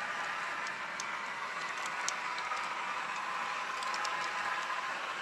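Model railroad freight cars rolling along the track close by, a steady rolling hiss with scattered clicks as the wheels cross rail joints.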